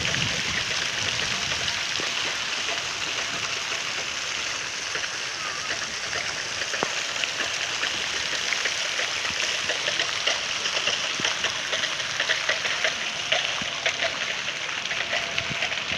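Fountain jets spraying and falling back into a pool: a steady rushing splash, with more spattering in the second half.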